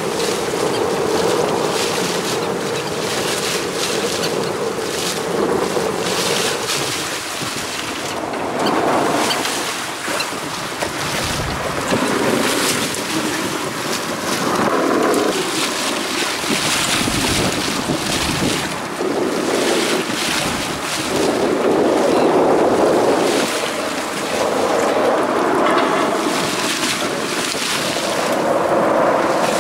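Wind buffeting the microphone over the sea washing against a small fishing boat's hull, steady throughout with gusts coming and going.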